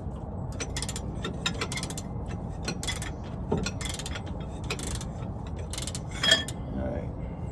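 Socket ratchet clicking in short runs as a rear shock-mount bolt is turned, with a ringing metal clink about six seconds in.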